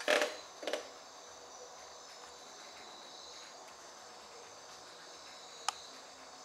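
Steady, faint, high-pitched chirring of insects, with two short rustles in the first second and a single sharp click near the end.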